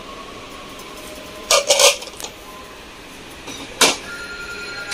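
A few short bursts of clatter from objects being handled, two close together about a second and a half in and one near four seconds, over a steady shop background.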